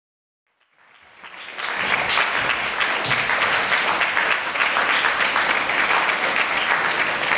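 Crowd applauding, fading in from silence about a second in and then holding steady.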